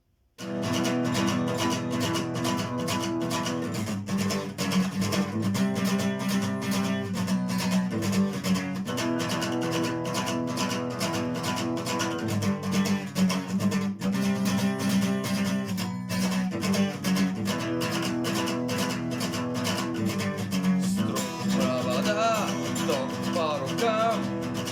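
Acoustic guitar strummed in a steady rhythm through a repeating chord progression: the instrumental intro of a song. It starts suddenly just after the beginning.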